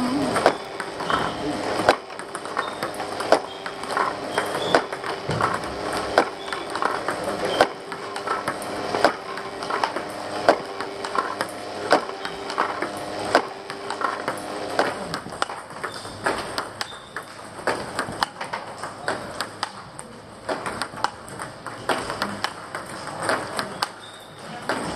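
Table tennis balls being struck with bats and bouncing on tables in rallies, a steady stream of sharp clicks, several a second, at irregular intervals.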